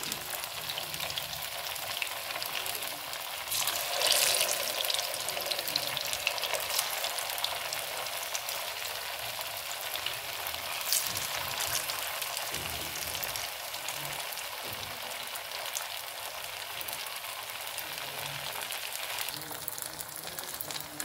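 Rice-dough fritters deep-frying in hot oil on a high flame: a steady, crackling sizzle that swells louder for a moment about four seconds in.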